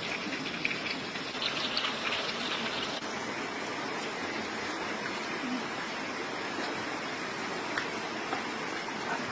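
Stream water running steadily.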